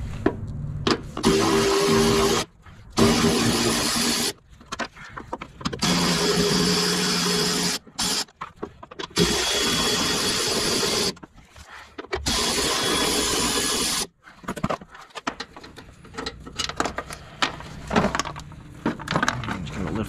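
A Milwaukee cordless electric ratchet spinning out the battery tray's 13 mm bolts in five short runs of steady whirring. Scattered clicks and knocks follow over the last few seconds.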